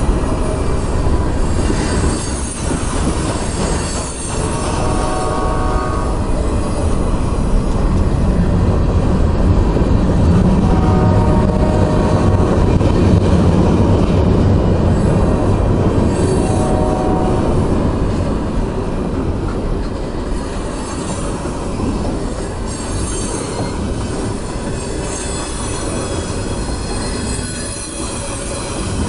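Freight train cars rolling past close by: a steady rumble of steel wheels on the rails, with wheel squeals rising and fading several times.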